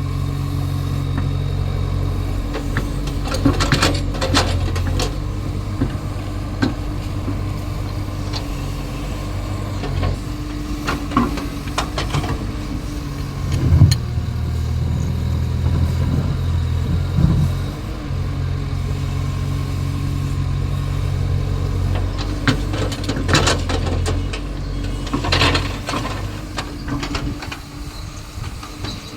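Caterpillar excavator's diesel engine running steadily, its note dropping and picking up again several times, with scattered clanks and knocks from the machine at work.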